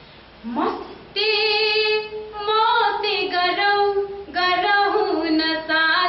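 A woman singing unaccompanied: a phrase of a pop song in a clear, high voice with held notes and small slides between them, coming in about half a second in and broken by short pauses for breath.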